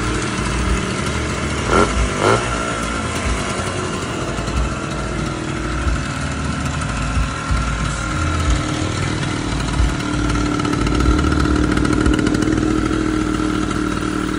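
Harley-Davidson X-90 minibike's 90 cc two-stroke single running, with two short sharp blips about two seconds in and a little louder from about eleven seconds on.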